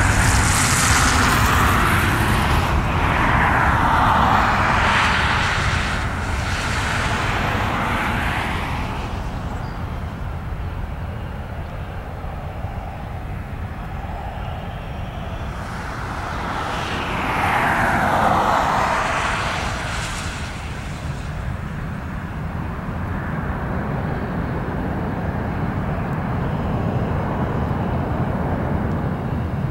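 Airbus A320's twin CFM56 turbofan engines at takeoff thrust: a broad, continuous roar with sweeping whooshes as the jet rolls down the runway, lifts off and climbs away. The roar eases after the first nine seconds, swells again about eighteen seconds in, then settles lower.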